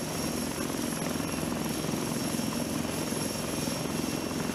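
Eurocopter Tiger attack helicopter running on the ground with its rotor turning: a steady drone of the twin turboshaft engines and rotor, with a thin, high turbine whine over it.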